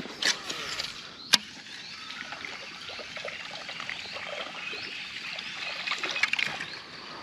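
Water trickling and dripping in small splashes around a kayak, with one sharp click a little over a second in.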